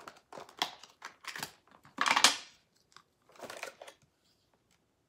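Clicks and rustling from handling eyeglasses as they are taken out and put on, with a louder rustle about two seconds in.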